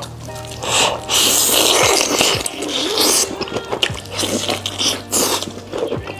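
Close-miked eating: noodles slurped and crispy fried chicken bitten into, with several long, noisy slurps, the longest about a second in.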